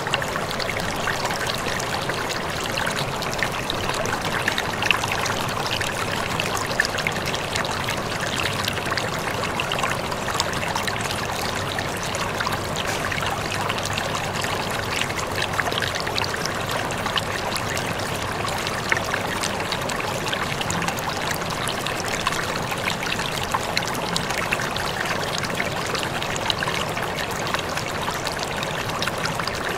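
Aquarium water bubbling and trickling steadily as the tank's aeration runs, a continuous patter of small splashes at the surface.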